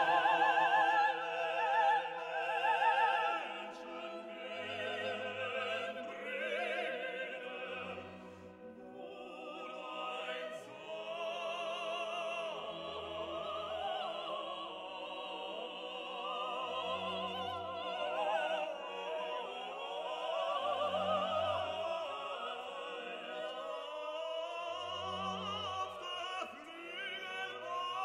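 Background music: operatic singing with vibrato over an orchestral accompaniment.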